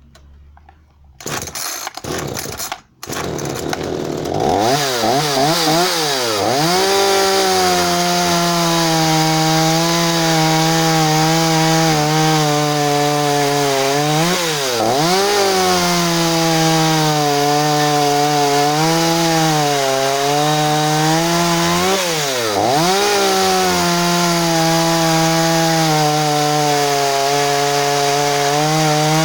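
GTM Professional GTC36 36 cc two-stroke chainsaw starting about a second in, cutting out for an instant, then catching and revving. It is then held at high revs, with the engine speed dropping and coming back up twice, near the middle and about three-quarters of the way through.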